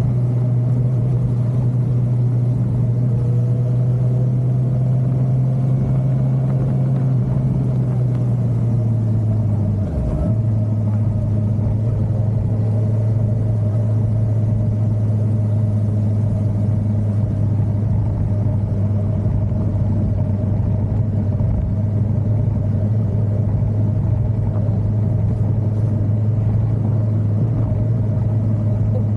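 Suzuki motorcycle engine running steadily at road speed, a low steady drone with road and wind noise over it. About ten seconds in the note breaks briefly and then carries on slightly lower.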